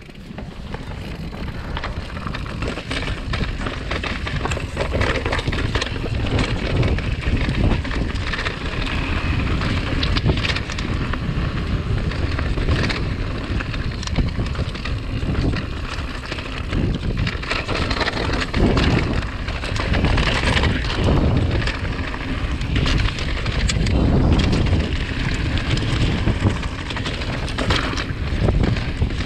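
Mountain bike riding a rocky gravel trail: tyres crunching and rolling over loose stones, the bike rattling and knocking over bumps, under heavy wind rumble on a chest-mounted camera's microphone. Quieter at first, building over the first couple of seconds as the bike picks up speed.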